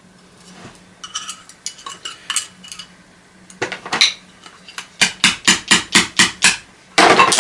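Hammer blows on the metal core of an old vacuum cleaner's motor, struck to knock it free of its mounting: light metallic clinks and taps at first, then a quick even run of about eight sharp strikes, about four a second, and a loud rattling clatter near the end.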